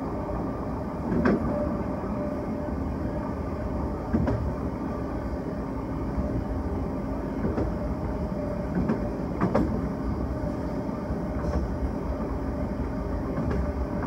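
Passenger train running along the track, heard from on board: a steady rumble of wheels on rail with a sharper knock every few seconds.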